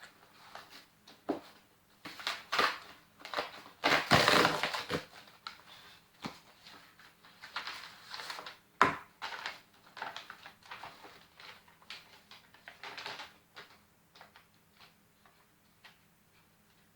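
A shipping package being torn open by hand: irregular tearing, crinkling and rustling of packaging, loudest about four seconds in, with a sharp snap a little later, dying down to light handling near the end.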